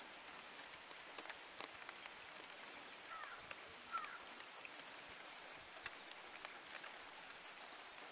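Faint forest ambience: a soft hiss scattered with light ticks, and two short chirps about three and four seconds in.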